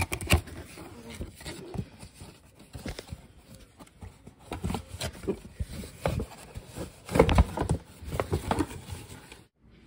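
Cardboard box and hand puppets being handled: scattered knocks, bumps and rustling, with a louder cluster of thumps about seven seconds in. It cuts off abruptly shortly before the end.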